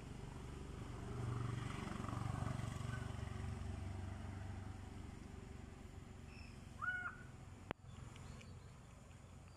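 Outdoor ambience dominated by a low motor hum that swells over the first few seconds and then fades, like a passing vehicle. A single short animal call about seven seconds in, then a sharp click.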